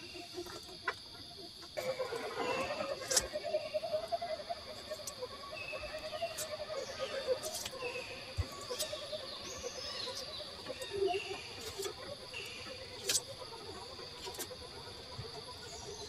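RC crawler's Hobbywing Fusion SE brushless motor whining as the truck crawls over the trail, its pitch wandering up and down with the throttle from about two seconds in. Scattered sharp clicks and knocks come through it.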